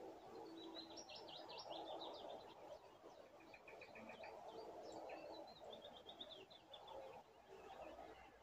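Faint songbirds singing: quick high chirps and trills, including a run of about seven rapid repeated notes near the middle, over a soft outdoor background hiss.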